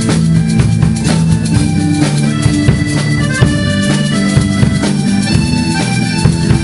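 Live band playing an instrumental break: a piano accordion carries the melody in held, stepping notes over drum kit, bass guitar and guitar.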